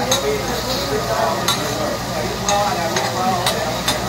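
Vegetables and onions sizzling on a teppanyaki steel griddle while a metal spatula scrapes and clacks against the plate, with several sharp clacks spread through. Restaurant chatter runs underneath.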